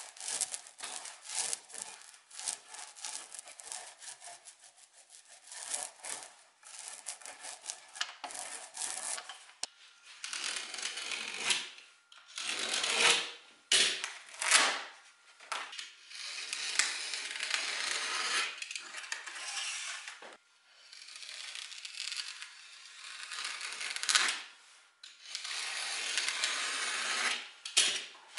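A small paint roller spreading PVA glue over a wooden frame, making a dense sticky crackle. From about ten seconds in, a blade is drawn through thin wood veneer along a metal straightedge in several long scraping strokes.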